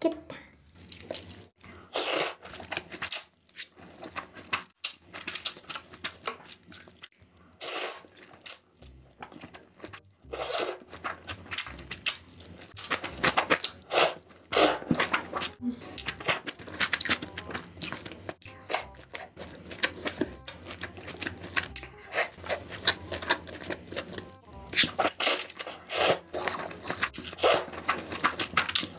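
Close-miked eating: a person slurping and chewing noodles from a bowl of soup, in irregular clicks and smacks.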